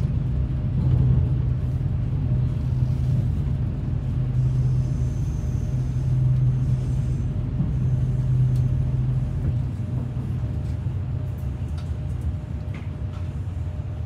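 Steady low rumble and hum inside the cabin of a Class 395 high-speed electric train running at speed, easing a little in the last few seconds.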